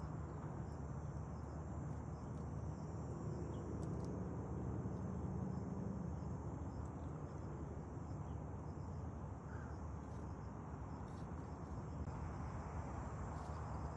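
A steady, high-pitched chorus of insects trilling over a low, even hiss.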